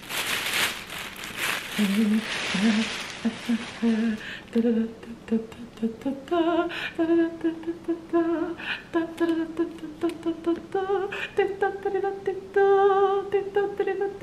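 A thin plastic shopping bag rustling and crinkling as a box is pulled out of it, fading after about three seconds. A woman hums a tune in held notes over it, the melody stepping higher about six seconds in.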